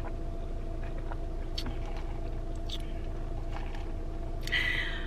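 A steady car hum heard from inside the cabin, with a few faint slurps of iced coffee sipped through a straw. Near the end comes a short appreciative moan.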